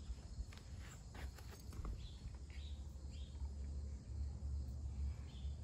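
Quiet backyard ambience: a low rumble on the microphone, a few soft footsteps, and several short faint bird chirps.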